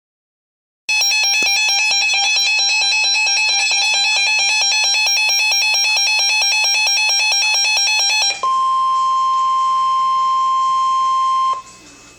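Emergency Alert System attention tones heralding a severe thunderstorm warning. After about a second of silence, a loud electronic alarm tone pulses rapidly for about seven seconds. It is followed by a steady single-pitched tone for about three seconds that cuts off abruptly.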